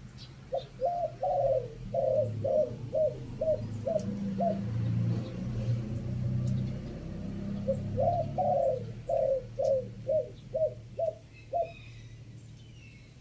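Spotted dove cooing: two runs of about nine short coos each, a few seconds apart, over a low steady hum.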